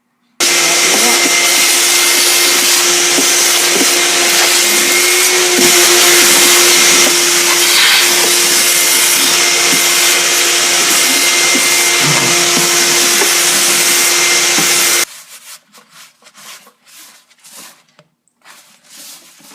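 Shop vac switching on and running with a steady loud whir, vacuuming leaves and dirt out of the caboose, then switched off about 15 seconds in. Faint knocks and rustles follow.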